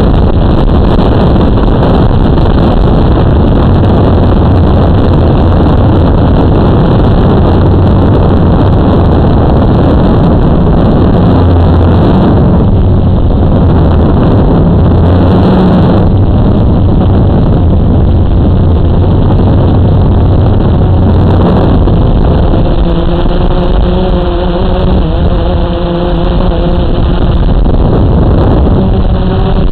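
Blade 350QX quadcopter's four brushless motors and propellers, heard up close from the onboard camera: a loud, steady drone with a low hum. About two-thirds of the way through, a set of higher whining tones comes in as the motor speeds change.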